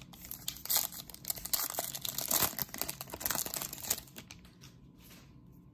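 Wrapper of a 2018 Panini Classics football card pack crinkling and tearing as it is ripped open and the cards slid out: a dense run of crackles for about four seconds that then dies down to a light rustle.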